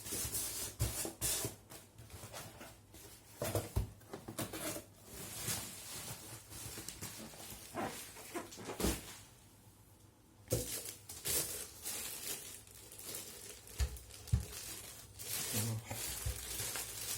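Hands handling a boxed bench power supply and its packaging: scattered taps, scrapes and rustles, with a quieter pause about halfway through.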